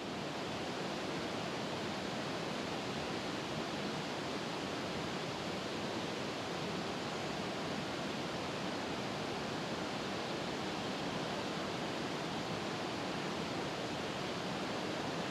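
A steady, even rushing hiss of outdoor background noise with no distinct events.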